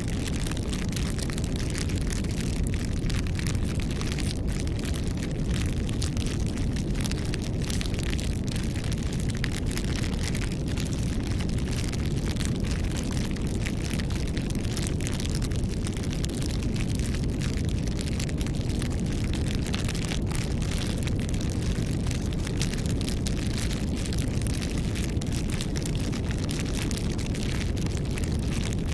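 Campfire burning, with a steady low rumble under frequent sharp crackles and pops that come irregularly and do not let up.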